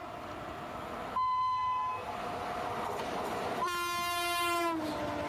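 Indian Railways WAP-7 electric locomotive horn sounding two blasts over the rumble of the train running: a short one about a second in, then a longer one just before the end whose pitch drops as it fades.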